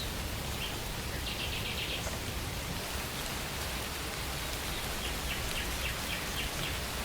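Steady rain falling, with a bird calling in two quick runs of short chirps, one about a second in and a longer one near the end.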